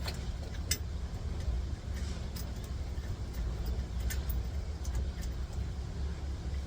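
Steady low background rumble with a few faint light clicks and taps.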